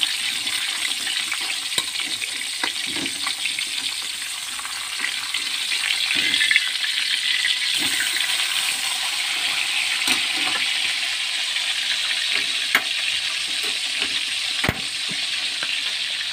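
Milkfish pieces sizzling steadily in hot oil in a wok as they are turned, with scattered clicks and scrapes of a metal spatula against the pan.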